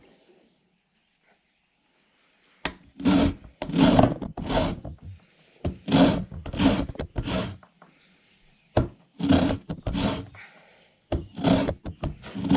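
A lemon being grated for zest: short rasping strokes against the grater in runs of three or four, about two thirds of a second apart, with short pauses between runs.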